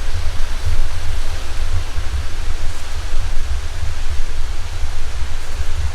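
Wind buffeting the microphone: a heavy, gusting low rumble under a steady hiss.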